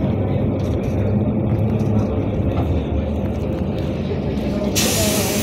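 Steady engine and road rumble heard inside a moving NefAZ-5299 city bus. A short hiss comes near the end.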